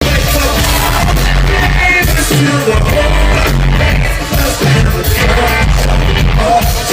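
Live concert music: a band playing a loud pop-country song with singing over a steady bass.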